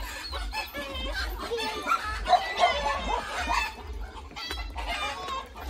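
Chickens clucking, a run of short, bending calls, loudest a couple of seconds in, over a low rumble.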